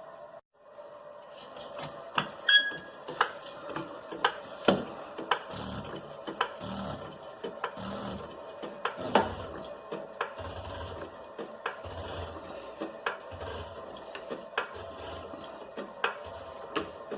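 Floor jack being pumped to lift the car: rhythmic metallic clicks with a low thump at each stroke, about once a second, over a faint steady hum.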